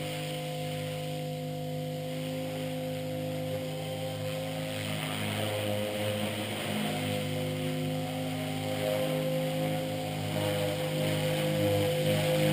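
Blade 450X electric RC helicopter in flight, its rotor and motor giving a steady pitched hum. The hum grows louder in the last few seconds as the helicopter comes closer.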